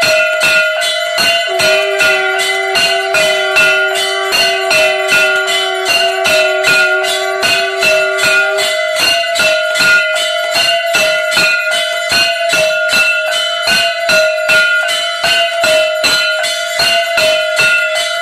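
Handheld brass gongs (jhalar) beaten with sticks in rapid, even strokes, each ringing on with a metallic tone. A lower ringing tone from another bell joins near the start and stops about halfway through.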